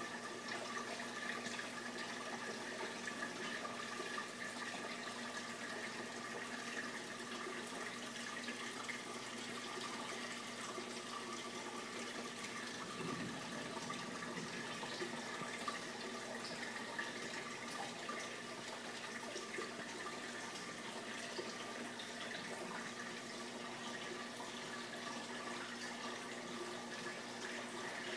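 Steady running and trickling water of a reef aquarium's circulation, with a steady hum of several tones underneath.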